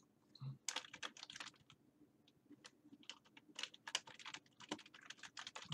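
Faint typing on a computer keyboard: a run of irregular keystrokes, with a short lull of about a second after the first second and a half.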